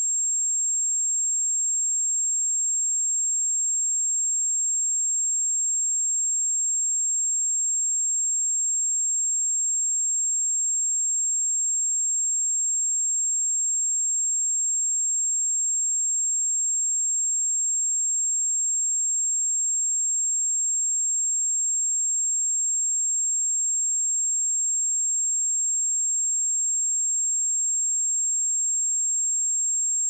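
A pure 7478 Hz sine-wave test tone, a single steady high-pitched whistle-like tone held at constant level.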